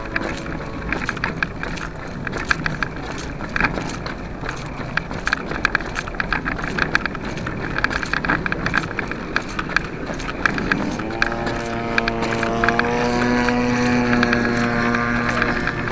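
Gas engine of a 30% scale Yak 54 RC airplane running at low throttle, with a rattle of clicks. About eleven seconds in it revs up and holds a steadier, higher pitch.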